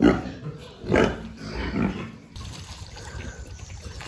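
Young pigs calling: three loud, noisy calls within the first two seconds. Then the sound cuts to a quiet outdoor background.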